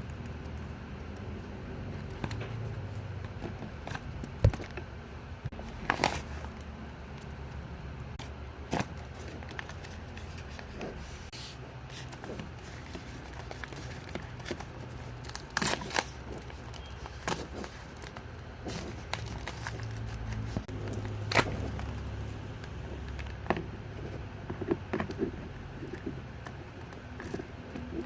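Hands handling packaging and small items during an unboxing: scattered clicks, taps and scrapes at irregular intervals, with a low steady hum underneath.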